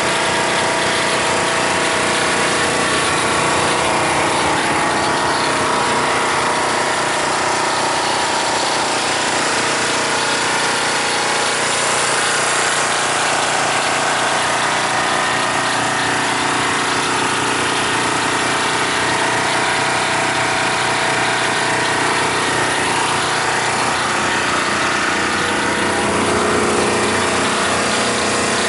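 An engine idling steadily at an even speed throughout.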